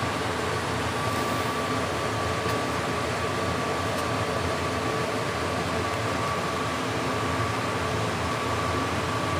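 Steady hum of a fan, with a faint whine held throughout.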